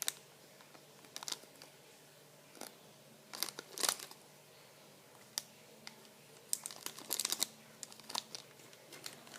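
Plastic packaging crinkling and crackling as a packaged squishy toy is handled, in a few short spells of light clicks and rustles, the busiest around three and a half and seven seconds in.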